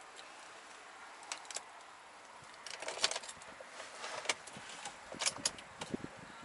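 A few sharp clicks and light rattles, mostly from about three seconds in, over a faint steady hiss.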